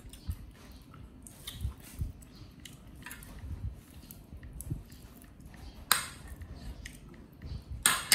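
Scattered clinks and knocks of dishes and eating utensils, with two sharper, louder clatters about six seconds in and again near the end.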